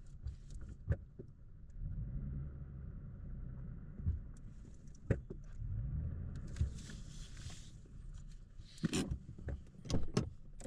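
Low rumble of a car, with scattered clicks and knocks of things being handled inside it, a short rustle about seven seconds in, and a cluster of louder knocks near the end.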